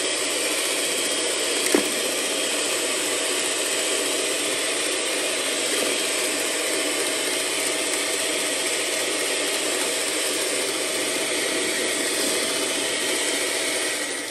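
Electric mixer with a wire whisk running steadily at one speed, whipping egg whites in a bowl to stiff peaks. There is one short click about two seconds in.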